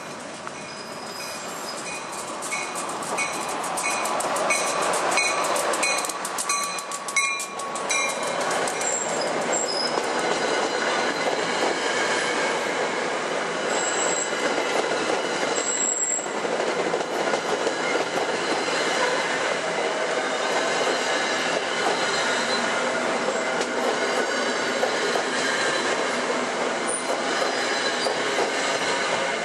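SEPTA commuter train of Comet coaches approaching and running past close by: a rising rush of wheels on rail that settles into a steady, loud rumble with clickety-clack over the rail joints. Brief high wheel squeals come about 14 and 16 seconds in. During the approach a high ping repeats about every half second.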